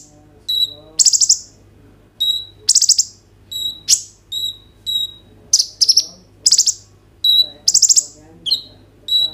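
Male kolibri ninja (Van Hasselt's sunbird) calling steadily, about two sharp high-pitched calls a second. Short clear notes alternate with loud rapid buzzy trills.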